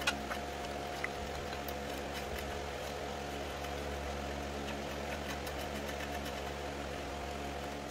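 A steady mechanical hum with several fixed pitches, with a few light clicks from hand tools working the engine's mounting bolts, one just at the start and one about a second in.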